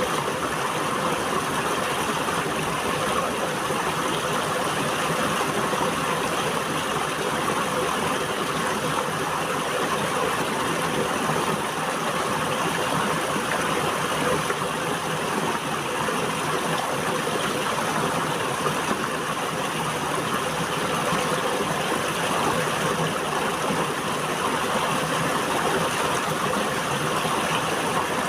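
River water flowing over rocks, a steady rushing with no change in level.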